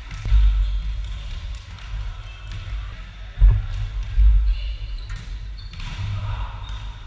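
Volleyball rally in a gym: the ball is struck by players' hands and forearms in a few dull thuds, the loudest about three and a half seconds in, with players' voices in the echoing hall.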